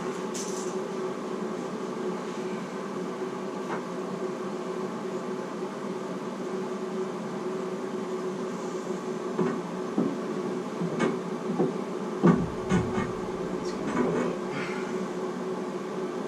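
A steady mechanical hum throughout, with a run of sharp clicks and knocks from about halfway to near the end.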